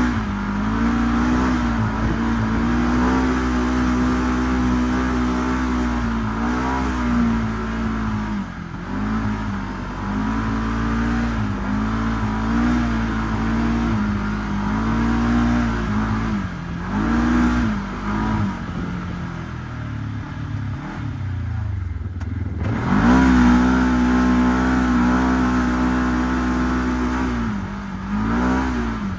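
Segway 1000 UTV engine under way, held at high revs with repeated short lifts and blips of the throttle. About twenty seconds in the revs drop to a low tone for a couple of seconds, then climb back up.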